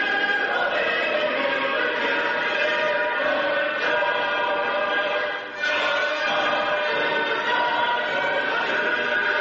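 Many voices singing together in long held notes, like a choir or a crowd singing in unison. The singing breaks off briefly about five and a half seconds in, then goes on.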